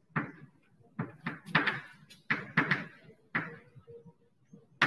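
Chalk writing on a blackboard: about ten short, sharp chalk strokes and taps, irregularly spaced, as a word is written.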